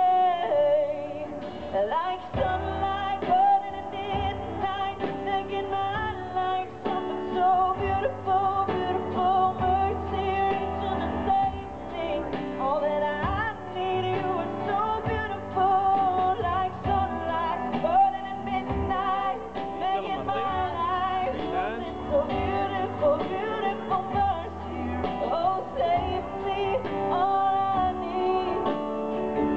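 A woman singing live into a microphone over amplified instrumental accompaniment with a steady bass line.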